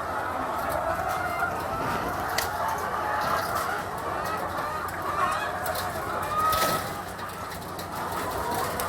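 A large flock of chickens clucking and calling together in a poultry farm shed: a dense, steady chorus of many overlapping calls.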